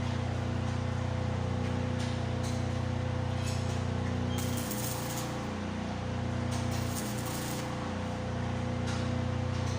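MAG welding: a steady electrical hum from the welding machine, with the arc crackling and hissing in uneven stretches.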